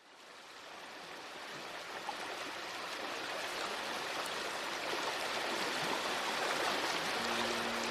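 Steady rush of river water flowing, fading in over the first few seconds. A few steady low tones join near the end.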